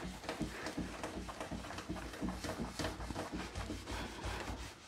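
A cloth rubbing wax over a smooth shellac-finished wooden drawer top in repeated short hand strokes, over a low rumble.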